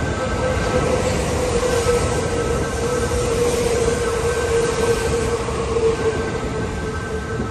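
Kintetsu limited express train running through the station at speed: a loud, steady rush of wheels on rail with one sustained tone held throughout, easing off a little near the end.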